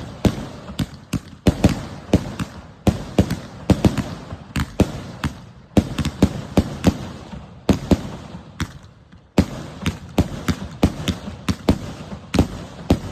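A 100-shot salute cake firing: rapid, irregular sharp bangs, several a second. The bangs stop for about a second and a half around two-thirds of the way through, then start again.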